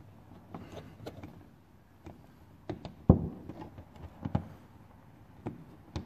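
Plastic trim-removal tool prying at a car's plastic trim and its clips: scattered small clicks and knocks, with one sharp louder knock about three seconds in and another a second later.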